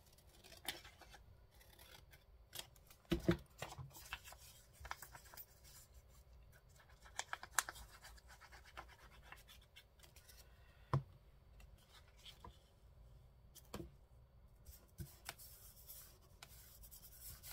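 Paper being handled and cut at a craft table: irregular scratchy rustles and snips, with a few sharper knocks on the work surface.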